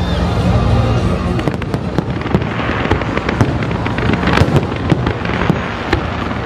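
Fireworks display: aerial shells bursting in many sharp bangs and crackles in quick succession, thickest a little past the middle.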